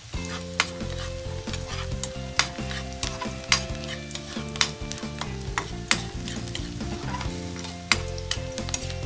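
Chopped onion and garlic sizzling in hot oil in a stainless steel wok while a metal ladle stirs them, its edge clicking and scraping against the pan at irregular moments. The aromatics are being sautéed until the garlic is cooked.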